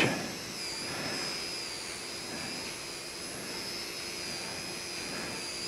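Arthroscopic surgical equipment running steadily, a hiss with a thin, slightly wavering high whine, as soft tissue is cleared off the acromion during shoulder arthroscopy.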